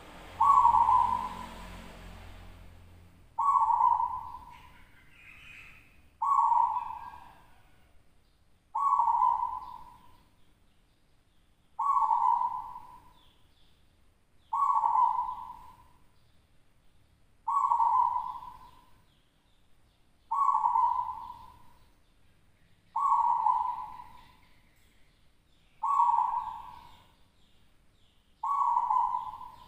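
Zebra dove (perkutut) cooing its song over and over, one short phrase about every three seconds, each at much the same pitch.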